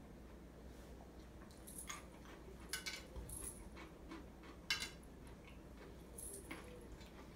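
Faint crunching and clicking from a person eating raw garlic cloves off a plate: a few short, sharp sounds, the sharpest about two-thirds of the way through.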